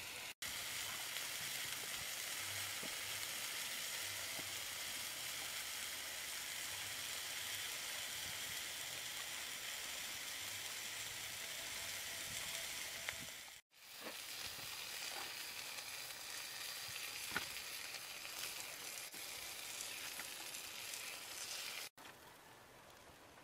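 Sauce-coated whole frogs sizzling and crackling as they fry on a hot stone, with an odd louder pop. The sizzle cuts out briefly twice and drops away near the end.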